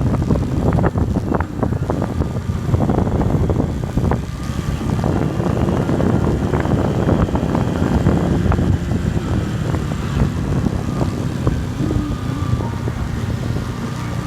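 Low rumble of wind buffeting the microphone on a downhill ride, with many short knocks and rattles from the bumpy road.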